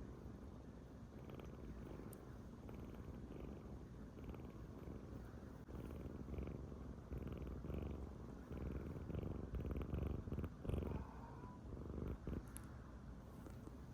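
Two-month-old kitten purring steadily, the purr strongest a little past the middle.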